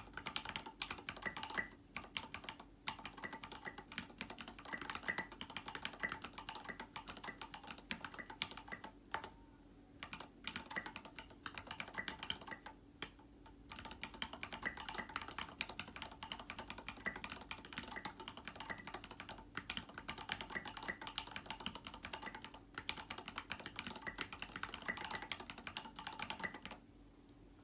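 Typing on a custom mechanical keyboard with SA keycaps and lubed linear MX Black switches on an aluminium plate: a fast, steady run of clacking keystrokes with a few short pauses, stopping near the end.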